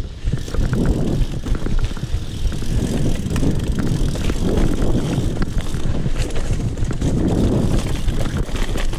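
Giant Trance Advanced 1 mountain bike riding over rough rock: a steady rumble of wind on the mic and tyres rolling, with many small clicks and rattles from the bike as it jolts across the stone.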